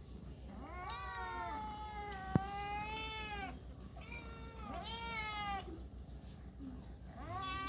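A cat meowing: two long, drawn-out meows that rise and fall in pitch, and a third starting near the end. A sharp click comes about two seconds in.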